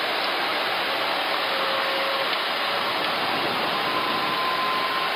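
Steady rushing cockpit noise of an airliner on approach with the landing gear down: airflow and engine noise heard on the flight deck, unchanging in level.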